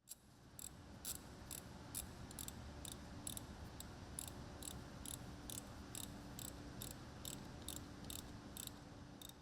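Ratchet wrench clicking steadily, about three clicks a second, as the 10 mm bolt on the truck's negative battery terminal is tightened back down.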